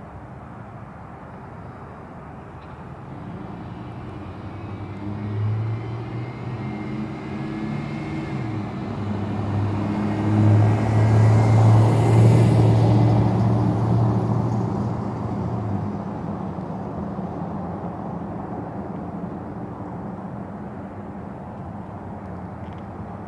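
A motor vehicle passing by: its low engine hum and road noise grow louder over several seconds, peak about halfway through, then fade away.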